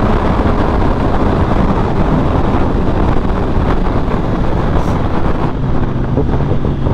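BMW S1000RR's inline-four engine running under way, largely covered by wind buffeting the microphone. About five and a half seconds in, the wind rush eases and a steadier engine note comes through.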